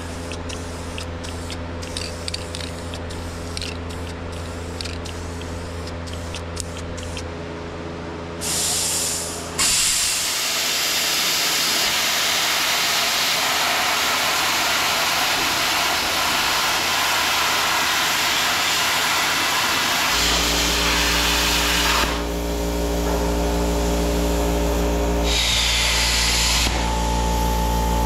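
Short hisses of an aerosol spray-paint can over a steady hum. Then, from about ten seconds in, a handheld plasma cutter cutting steel makes a loud, even hiss that stops at about twenty-two seconds. A low machine hum follows, with one more short burst of cutting near the end.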